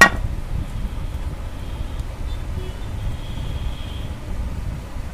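A sharp knock right at the start, then a steady low rumble with a faint high whine in the middle.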